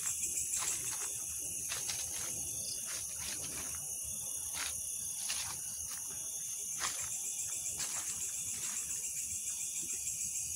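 Insect chorus: a steady, high-pitched trill with fast pulsing, broken by a few short clicks or rustles.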